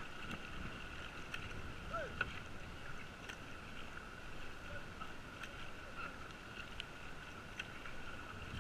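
Kayak paddle strokes on flat river water, with short ticks and splashes about once a second. A steady high-pitched hum runs behind them.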